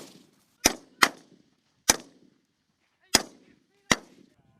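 Five single rifle shots, irregularly spaced, each a sharp crack followed by a short echoing tail.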